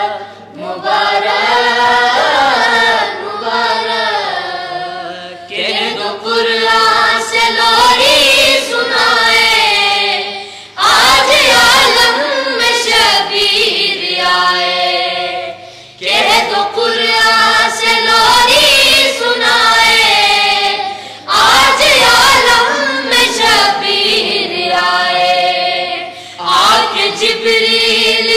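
Group of boys singing a manqabat together in unison, in phrases of about five seconds with short breaks for breath between them.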